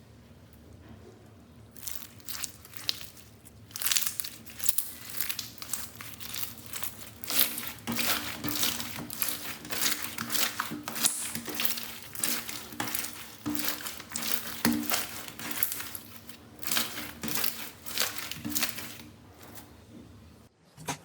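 Slime being squeezed and worked by hand, giving a dense run of crackling, crinkling pops. The crackling starts about two seconds in and stops shortly before the end.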